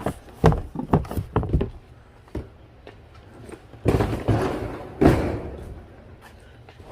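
Boxes and shoes being handled and loaded: a few quick knocks in the first second and a half, then two longer, louder scrapes about four and five seconds in.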